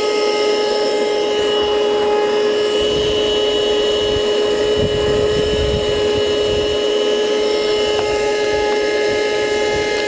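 Cherylon portable handheld car vacuum running with a steady whine and rush of air, its hose nozzle drawn over a carpeted car floor mat, sucking up debris.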